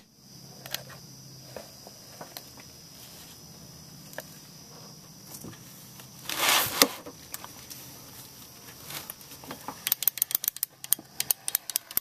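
Ratcheting torque wrench on a wheel lug nut: a brief scraping rustle ending in a sharp click about six and a half seconds in, then a rapid run of ratchet clicks near the end as the handle is swung back and forth.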